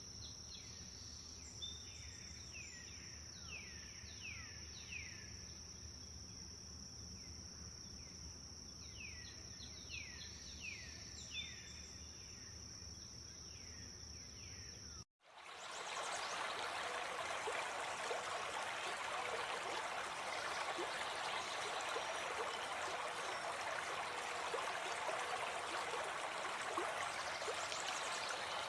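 Forest ambience: a steady high-pitched insect drone with runs of short descending bird whistles. About halfway through, it cuts abruptly to a louder, even rush of flowing water, like a stream or small waterfall.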